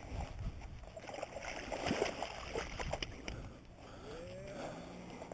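Irregular splashing and handling noise as a hooked bass is brought in and landed, loudest about two seconds in. A short rising-and-falling call sounds about four seconds in.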